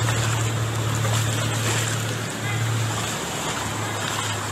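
Floodwater rushing and splashing, with the steady low hum of a vehicle engine running through it.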